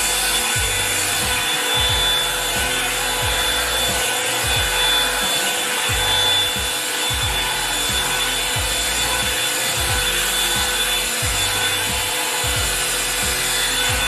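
Revlon One-Step hair dryer brush running steadily: a rush of air with a high, even motor whine, as the brush is drawn through hair.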